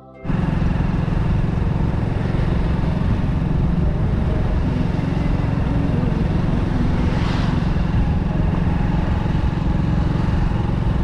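Steady rumble of a moving road vehicle: engine and road noise with heavy wind buffeting on the microphone. It starts abruptly just after the start, loud and unchanging.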